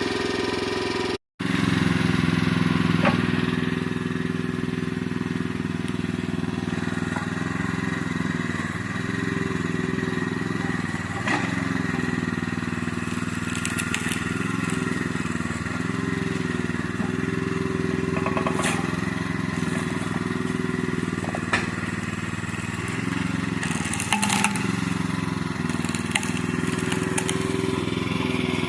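Towable backhoe's small gas engine running steadily, its pitch dipping several times as the hydraulics take load, with a few sharp clanks and knocks from the digging.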